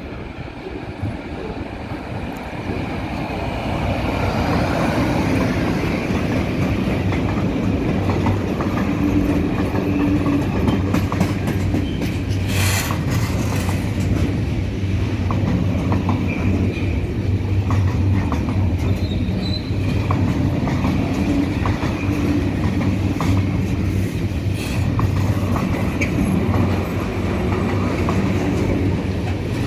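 Container freight train hauled by an electric locomotive passing close by. The sound builds over the first few seconds as the locomotive arrives, then settles into the steady rolling of the loaded container flat wagons' wheels on the rails, with clicks and clatter as the wheels cross rail joints.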